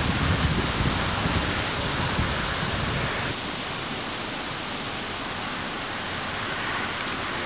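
Wind buffeting an old camcorder's built-in microphone over a steady hiss. The irregular low rumble drops away about three seconds in, leaving only the even hiss.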